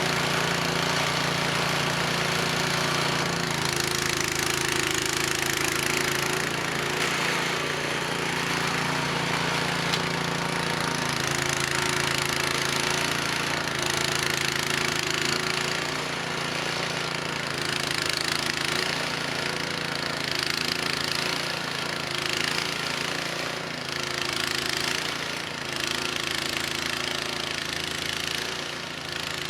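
Cub Cadet 2X 524 SWE two-stage snowblower's gas engine running steadily under load while it clears heavy wet snow. The engine note shifts a little now and then as the load changes.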